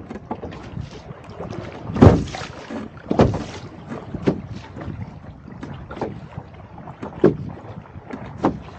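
Choppy water slapping and splashing against the bow of a sailing canoe under way, in irregular hits about once a second, the loudest about two seconds in, over wind rushing on the microphone.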